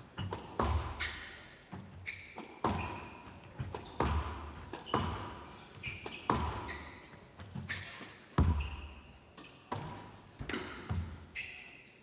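Squash rally: sharp cracks of the ball off rackets and the court walls, more than one a second, each with a short hall echo. Between the hits come short high squeaks of court shoes on the wooden floor and dull thuds of footfalls.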